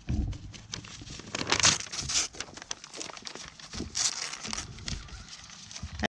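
Irregular crackling and rustling right at the microphone as a goat noses at the camera, its muzzle brushing and rubbing against it, loudest about two seconds in and again about four seconds in.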